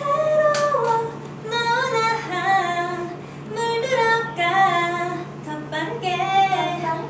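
A young woman singing a short tune unaccompanied in a high, clear voice, in several phrases of held, stepping notes, over a steady low hum.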